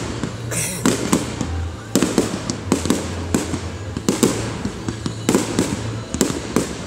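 Fireworks display: a run of sharp bangs and pops, several following one another quickly, with a short hiss about half a second in.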